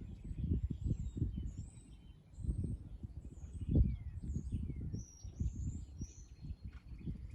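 A horse's hoofbeats during a Western dressage test: a run of low, dull thuds, with birds chirping and whistling high above them.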